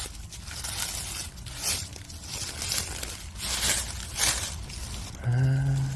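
Dry leaves and brush rustling and crunching in irregular strokes, about two a second. Near the end comes a short, low hum of a man's voice.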